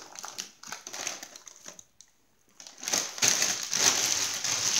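Doritos chip bag of foil-lined plastic crinkling as a child handles it with both hands. The sound cuts out briefly about two seconds in, then returns louder and continuous.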